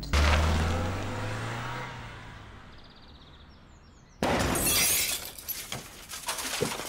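A car engine revs hard as it pulls away and fades off. About four seconds in comes a sudden loud crash, followed by breaking and clattering as the car hits crates of milk bottles.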